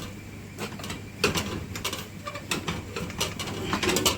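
Ugali being stirred and turned in a pot: irregular knocks and scrapes of the stirrer against the pot as the stiff, sticky dough is worked, coming in quick clusters.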